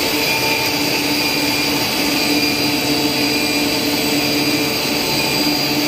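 Running cast stretch film extrusion line: its electric drive motors and gearboxes give a steady mechanical hum and hiss, with several steady whining tones over it.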